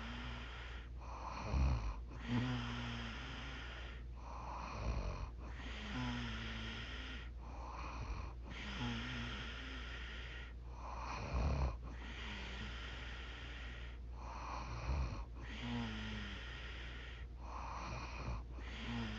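A 45-year-old woman snoring in her sleep, about every three and a half seconds: each breath a rushing snore with a low buzzing tone in it, over a steady low hum.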